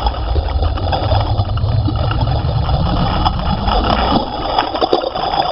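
Motorboat under way: its engine running steadily with a low rumble, mixed with the rush of water past the hull.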